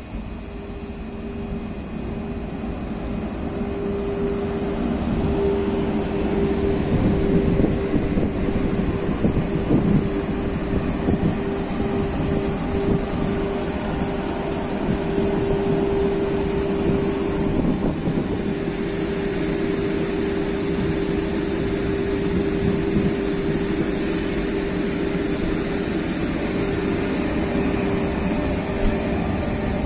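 Electric commuter trains running past at close range. Wheels rumble on the rails under a steady hum from the train's electrical equipment, and the sound grows louder over the first several seconds as the train comes alongside, then holds.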